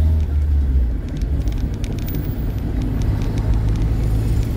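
Car driving, heard from inside the cabin: a steady low engine and road rumble that eases about a second in, with faint scattered light ticks.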